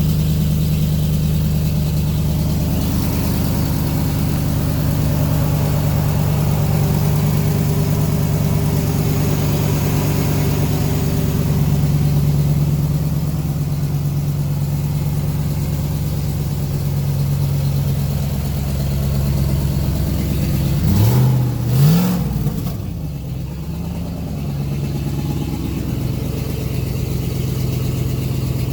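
2004 Chevrolet Avalanche's V8 engine idling steadily, with one short rev about three-quarters of the way through.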